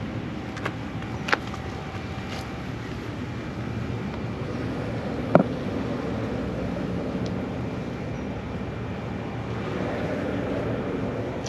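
Steady rumble of road traffic, with a few faint clicks and one sharper tap about five seconds in.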